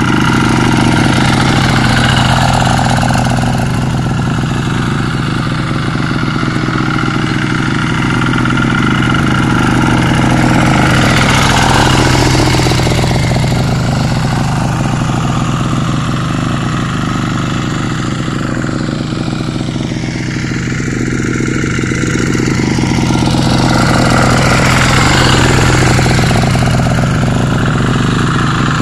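Kubota TL 800 two-wheel hand tractor's single-cylinder diesel engine running steadily under load. It is dragging a wooden levelling board through shallow paddy mud, and its pitch and loudness swell and ease a little as it works.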